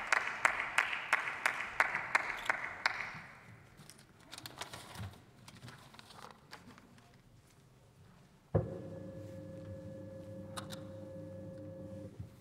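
A few people clapping, fading out about three seconds in. Then, about eight and a half seconds in, an electric motor, the lectern's height adjustment, starts suddenly with a steady hum of several tones, runs for about three and a half seconds and stops.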